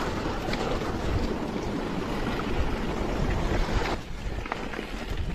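Mountain bike rolling through a shallow rocky stream: rushing, splashing water and tyre noise, with wind on the microphone. About four seconds in the water noise stops and it turns quieter, with a few light ticks of tyres on a dry dirt trail.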